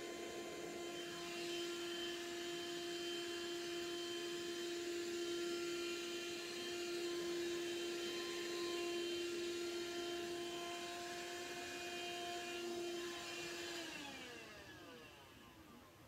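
Small bagless vacuum cleaner running with a steady whine, then switched off near the end, its pitch falling as the motor winds down.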